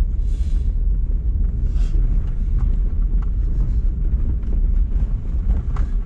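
Car driving on a hill road, heard from inside the cabin: a steady low rumble of engine and road noise, with a brief hiss twice, near the start and about two seconds in.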